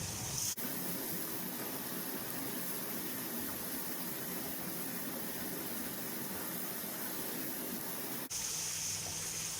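Biryani masala gravy of yogurt and spices bubbling and sizzling steadily in the pot on high heat as its water cooks off. The sound shifts abruptly about half a second in and again near the end.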